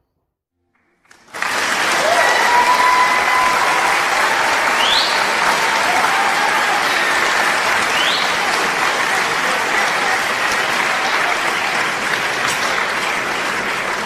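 A large audience applauding, starting about a second in and carrying on evenly, with two short rising whistles in the middle.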